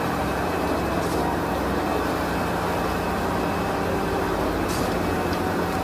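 Steady vehicle engine running sound, even and unchanging, with a low hum under a wide noise.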